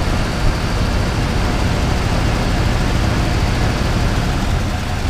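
Freshly rebuilt Ford 351 Windsor V8 idling steadily, while the distributor is turned to advance the ignition timing toward maximum manifold vacuum.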